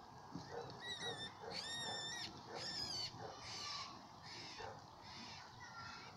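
Rabbit screaming in distress, the cry of a rabbit caught by a stoat: three high, wavering squeals in the first three seconds, then fainter, shorter cries.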